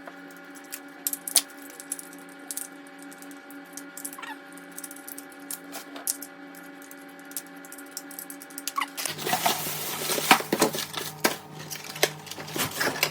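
Ring light kit parts and packaging being handled: scattered light clicks and taps with a few faint squeaks, becoming denser crinkling and rustling about nine seconds in, over a steady low hum.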